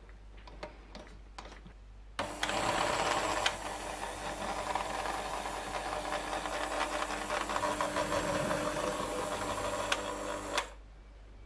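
Electric hand mixer running, its beaters churning flour into a wet muffin batter in a glass bowl. A few faint clicks come first, then the motor starts about two seconds in, runs steadily and cuts off near the end.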